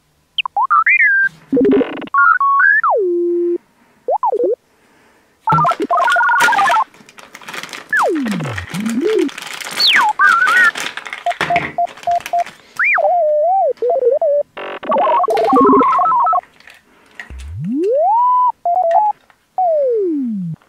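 A string of cartoon-style electronic sound effects: whistle tones sliding up and down in pitch, short bleeps and buzzy tones, one after another. Plastic crinkling runs under them in the middle.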